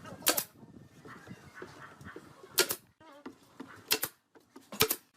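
Four sharp knocks at uneven intervals, the last two closer together, with fainter handling noise between them.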